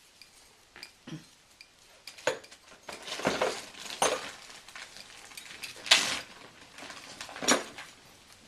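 Christmas tree ornaments being handled and hung, giving a series of light clinks and clatters, the loudest about six seconds in.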